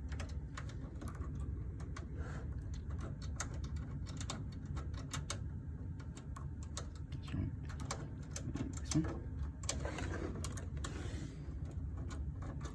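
Irregular small clicks and taps of hands working a VGA cable's plug and thumbscrews into a computer's port, over a low steady hum.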